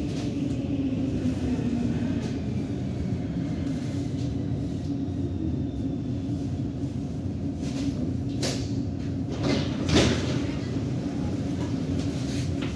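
Metro train running, heard from inside the carriage: a steady rumble with a motor whine that falls in pitch over the first couple of seconds. Two sharp clacks near the end, the louder one about ten seconds in.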